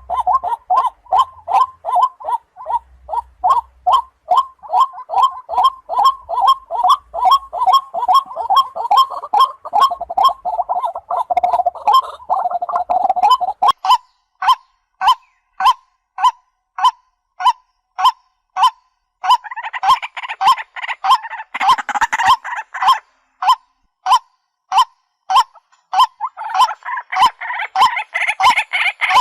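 Waterhen calling: a loud honking note repeated evenly about twice a second. Through long stretches a second, denser run of calls overlaps it.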